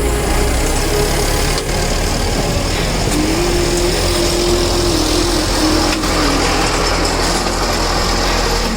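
Tractor engine running steadily under work, its note shifting up a little about three seconds in and wavering slightly after.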